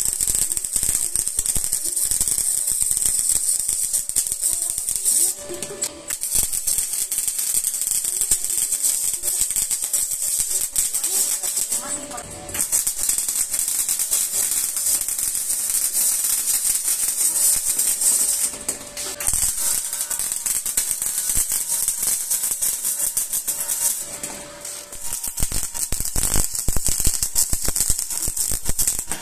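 MIG welding arc on stainless steel tube, crackling and sizzling steadily as the wire feeds into the weld. The arc runs for about five or six seconds at a time with short breaks between beads, four times in all.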